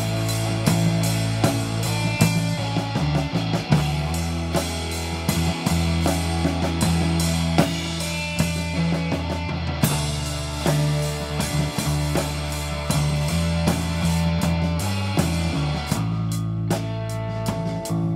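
Live rock band playing an instrumental passage: a drum kit and electric guitar over sustained low bass notes that change every second or two. The drums drop back near the end.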